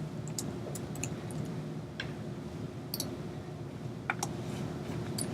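Scattered, irregular clicks from a computer being used, about seven short taps over a low steady hum.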